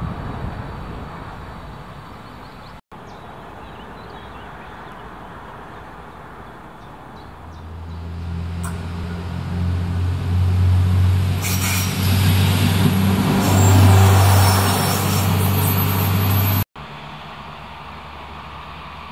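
A diesel railcar drawing near, its engine's low steady drone building up and growing louder, joined for a few seconds by a high metallic squeal from the running gear. The sound cuts off suddenly near the end, leaving only faint outdoor background.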